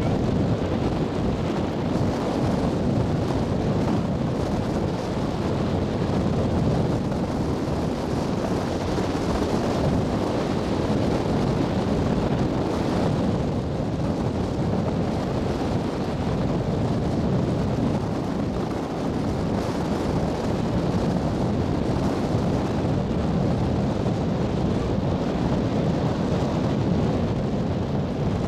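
Wind buffeting the microphone over the steady rumble of a harbour ferry under way, with no let-up.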